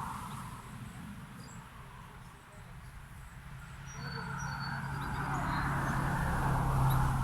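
A vehicle passing by: tyre noise and a low engine hum swell from about four seconds in to a peak near the end. A few short, faint bird chirps come in the middle.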